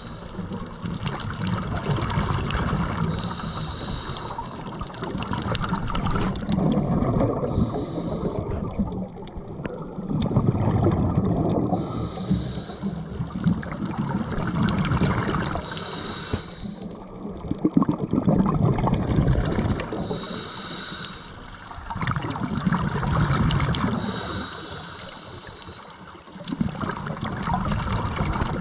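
Scuba diver breathing through a regulator underwater: a hiss on each inhale and a loud bubbling rush of exhaled air on each exhale, repeating about every four seconds.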